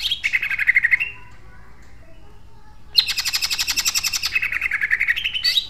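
Caged green leafbird (cucak ijo) singing its rapid 'tembakan' phrases: fast, tightly packed repeated notes. A burst of about a second comes first, falling in pitch. After a pause of about two seconds, a longer burst of about two and a half seconds starts high, slides down, and rises again at the end.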